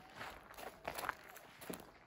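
Footsteps on dry grass and dirt: a run of several uneven steps.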